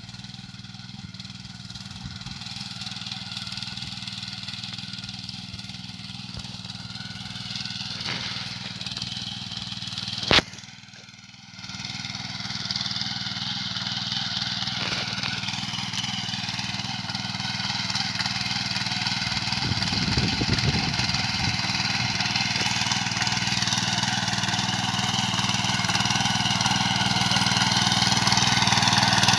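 Small engine of a walk-behind power weeder running steadily as it works down the crop row, growing steadily louder as it approaches. A single sharp click about ten seconds in is followed by a brief drop in the sound.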